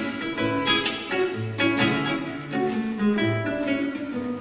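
Solo cutaway nylon-string classical guitar playing a fingerpicked piece: plucked melody notes and chords over a repeating low bass line.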